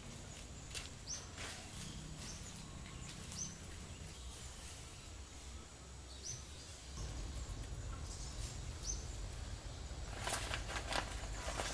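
Small birds caught on a branch trap, fluttering and giving short, high, rising chirps every few seconds. There is a burst of flapping and rustling near the end.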